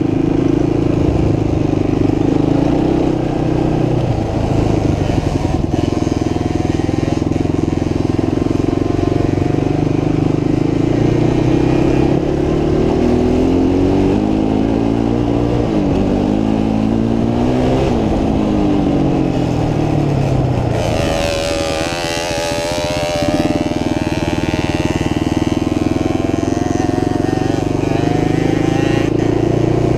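Motorcycle engine running steadily, its pitch rising and falling several times through the middle, with a short rushing noise about two-thirds of the way through.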